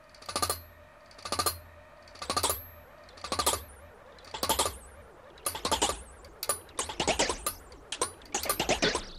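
A large pendulum clock's escapement ticking, sharp metallic ticks about once a second. About five seconds in, the clicks turn faster and denser, several a second.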